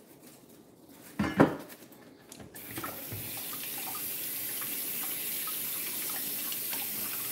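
A sharp knock about a second in, then a kitchen tap turns on and runs steadily into the sink.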